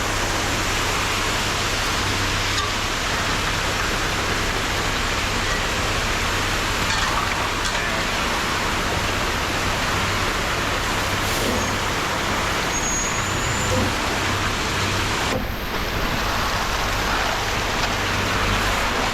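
Concrete mixer truck running steadily during a pour: a constant low engine hum under an even rushing noise, with no break.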